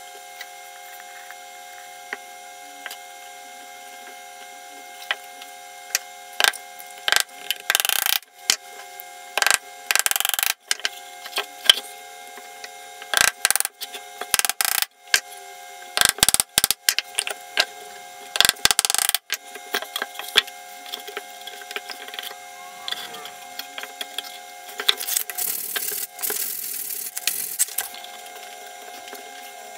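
A small hammer tapping small nails into the joints of a thin plywood box, in quick clusters of sharp taps, most of them in the middle of the stretch. A faint steady hum runs underneath.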